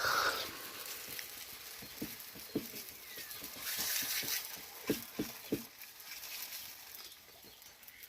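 Hands patting and slapping melloui dough while shaping it: a handful of soft, irregular pats over a low hiss.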